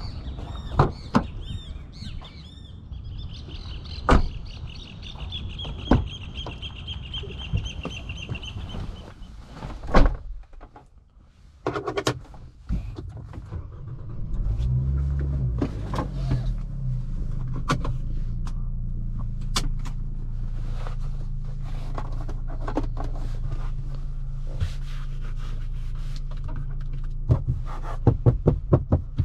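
Scattered clicks and knocks, with a high, rapidly repeating chirp from a few seconds in lasting about six seconds, and a loud thunk about ten seconds in. About fifteen seconds in the Nissan Kicks' 1.6-litre four-cylinder engine starts with a brief flare of revs and settles into a steady idle.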